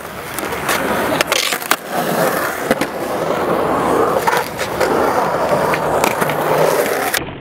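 Skateboard wheels rolling on concrete: a steady rumble broken by sharp clicks now and then.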